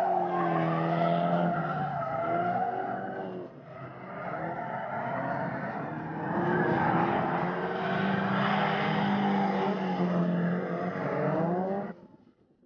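Nissan S13 drift car sliding sideways through a corner: the engine revs rise and fall as the throttle is worked, over the squeal of tyres skidding. The sound dips about three and a half seconds in, builds into a second long slide, and cuts off suddenly near the end.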